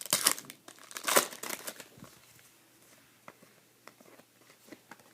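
A trading-card pack wrapper crinkling and tearing as it is opened, loudest in the first two seconds, followed by a few light clicks of cards being handled.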